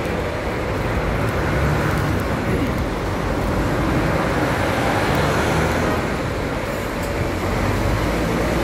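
Intercity coach's diesel engine running close by, a steady low hum.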